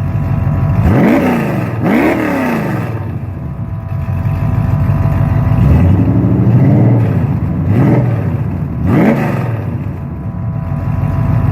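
Chevy 350 small-block V8 with a small Lunati cam, exhausting through dual Spintech Pro Street mufflers with no tailpipes, idling and revved in about five quick throttle blips. Each blip rises and falls sharply, and the one in the middle is slower and longer.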